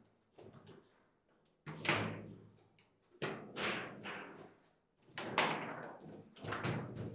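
Table football play: a series of sharp, irregular knocks as the ball is struck by the figures and the rods bang against the table walls, each knock ringing briefly.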